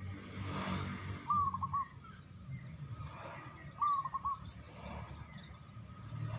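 Zebra dove (perkutut) cooing twice, about two and a half seconds apart, each call a short held note breaking into a few quick fluttering notes, over a low background rumble.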